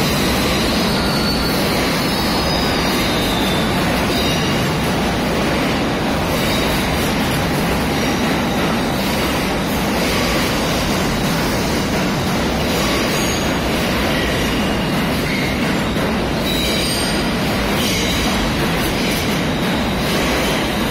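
R68 subway train pulling out of an underground station, its cars rolling past with a steady loud rumble of steel wheels on rail and short high wheel squeals now and then.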